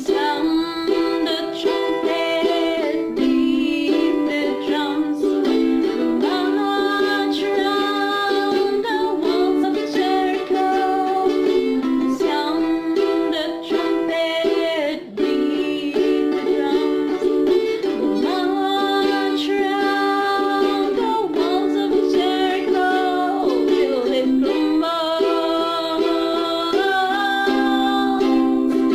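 Ukulele music with a slow melody of long held notes that slide and waver in pitch over the strummed chords.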